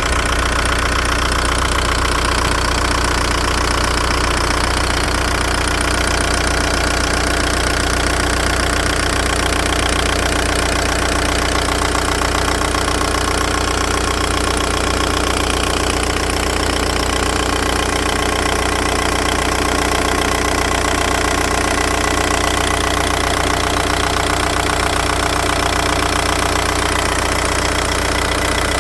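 Volkswagen Golf 1.9 TDI (AHF) four-cylinder diesel engine running steadily with a fast, even ticking from the top of the engine, which the owner puts down to the injection pump. About twenty seconds in, a chattering from the single-mass flywheel clutch kit joins in the background.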